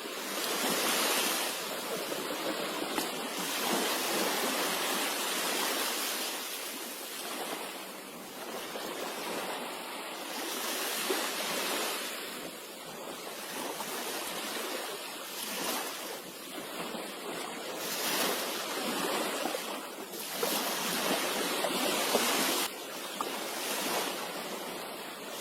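Sea surf breaking and washing onto a beach: a steady hiss of water that swells and fades every few seconds.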